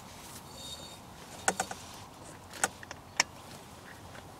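Sharp clicks and knocks of gear being handled: a quick cluster of clicks about a second and a half in, then single clicks about a second apart.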